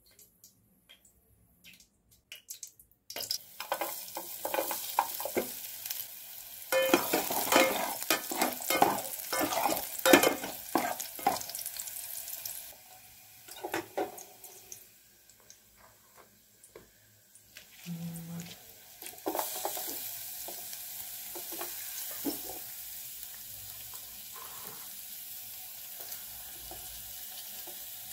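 Chopped garlic and black pepper sizzling in hot oil in an electric rice cooker pot, stirred and scraped against the pot with a coconut-shell spoon. It starts about three seconds in, with busy clattering stirring in the middle, and settles into a steadier sizzle for the last third.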